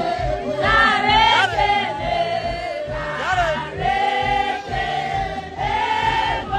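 Music: a song with several voices singing over a steady beat.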